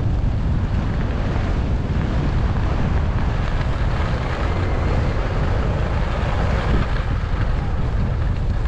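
Steady wind rush over the microphone of a moving skier, with the hiss of skis sliding over packed, groomed snow.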